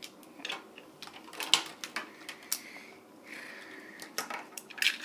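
Beyblade spinning-top parts clicking and clattering as they are handled and snapped together, with irregular sharp clicks and a couple of short scraping sounds.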